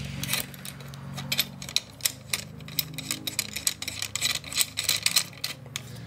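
Irregular clicks and taps, several a second, as a camera cage's top handle is fitted onto the cage and its mounting thumbscrew is turned hand-tight.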